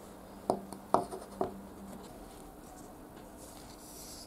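Three light knocks of a wooden screwdriver handle being handled in the fingers, about half a second apart, over a faint steady low hum.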